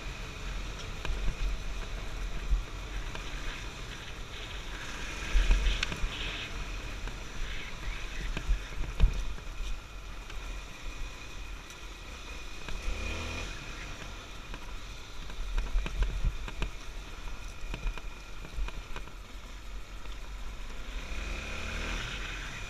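Honda XR250 Tornado single-cylinder four-stroke dirt bike engine running as the bike rides a rough gravel track, rising in pitch twice as the throttle is opened, about halfway through and near the end. Occasional sharp knocks come from the bike jolting over the rocky surface.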